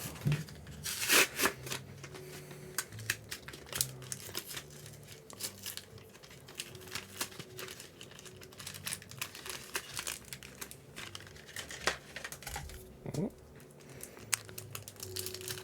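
Foil wrapper of a Yu-Gi-Oh trading card booster pack being torn open and crinkled by hand: a scatter of small rips and crackles, which the opener calls "little rips".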